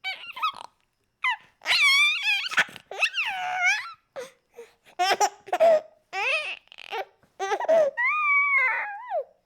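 Baby fussing and babbling: a string of short, high-pitched wails, whines and squeals with wavering pitch and brief pauses between them.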